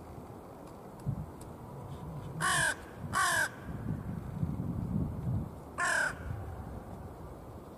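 Hooded crow cawing three times: two harsh caws close together about two and a half seconds in, and a third near six seconds, each falling slightly in pitch.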